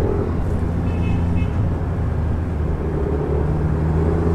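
Yamaha NMAX scooter's single-cylinder engine running steadily under way, with road noise.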